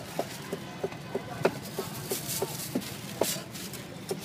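Meat cleaver chopping grilled pork and offal on a round wooden chopping board: a steady run of short knocks, about three a second, a few louder than the others.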